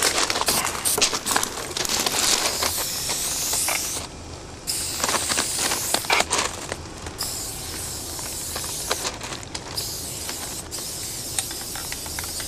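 Aerosol spray paint can hissing in repeated bursts, some short and some held for a second or more, with scattered clicks between sprays.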